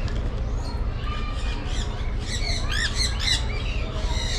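A flock of sun conures squawking, a jumble of shrill, rapid calls that thickens about halfway through, over a steady low hum.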